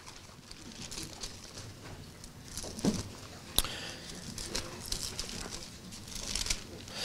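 Bible pages being turned and rustled on a pulpit, with a sharp tap about three and a half seconds in.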